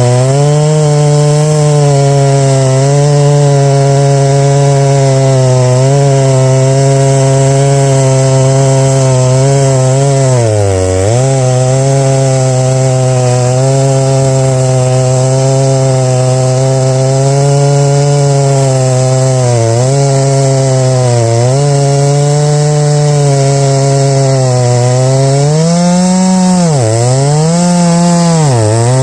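Large-displacement two-stroke chainsaw at full throttle, ripping a lengthwise milling cut through oak under steady load. The engine speed holds even, with several brief dips where it bogs in the cut before picking back up, about eleven seconds in and a few more times in the second half.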